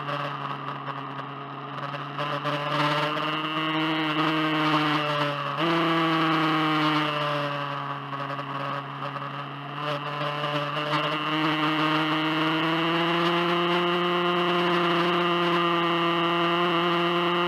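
BMW S1000RR's inline-four engine running while riding, its pitch rising and falling with the revs and jumping up suddenly about five seconds in.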